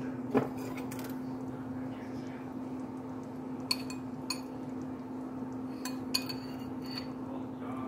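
Metal spoon clinking against a soup bowl: one sharp clink about half a second in, then several lighter ringing clinks as the spoon moves in the soup, over a steady low hum.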